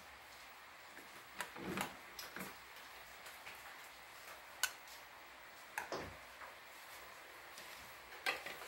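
Metal serving spoons clinking and scraping against steel pots and a metal plate while food is dished out: a handful of faint, scattered clicks.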